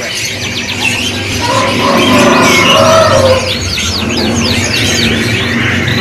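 Caged canaries in full song: a dense chorus of rapid chirps and quick sweeping trills, busiest in the middle seconds.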